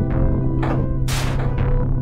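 Electronic music triggered through a Playtronica Touch Me touch-to-MIDI controller as an ink brush touches an aluminium-covered board: a steady low drone under noisy whooshing swells, the loudest starting about a second in.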